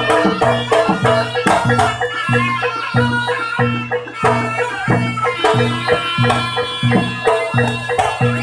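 Live jaranan music: a loud, reedy wind melody, most likely the slompret shawm, over drums and gong-type percussion keeping a steady beat of about two low strokes a second.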